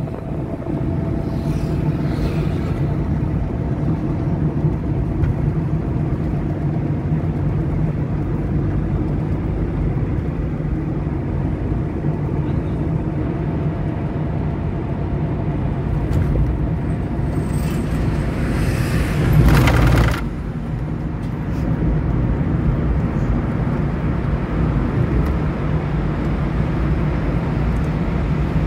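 Maruti 800's small three-cylinder petrol engine and road noise heard from inside the cabin while cruising, steady throughout. About nineteen seconds in, a louder rushing noise swells up and then cuts off suddenly.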